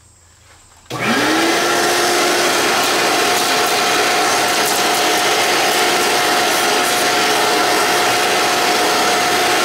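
Shop vacuum switched on about a second in, its motor spinning up with a quickly rising whine, then running steadily with a loud, even suction rush as it sucks up aluminum and wood drill shavings.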